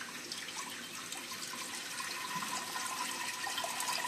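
Water poured in a steady stream from a plastic jug into a pressure cooker, splashing onto the water already in the pot. A faint ringing tone joins about two seconds in as it fills.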